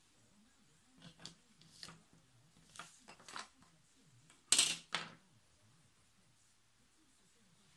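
A clear plastic set square being lifted off a sheet of paper on a table and put down: a series of short scrapes and clacks, the loudest two about four and a half seconds in.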